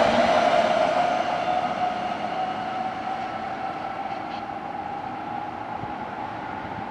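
Odakyu 2000 series electric train pulling away from a station, its traction inverter and motors giving a steady whine that climbs slowly in pitch as it accelerates. The whole sound fades as the train moves off.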